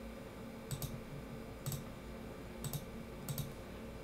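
Computer mouse button clicking four times, about once a second, several of them as quick double clicks.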